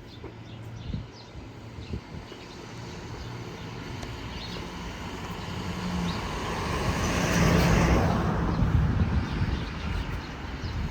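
A vehicle passing by, its engine and tyre noise growing louder to a peak about three quarters of the way through, then fading.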